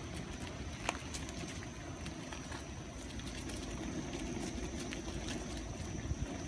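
Steady low rumble of electric unicycles being ridden: wind on the microphone mixed with tyre rolling noise, with a few faint ticks.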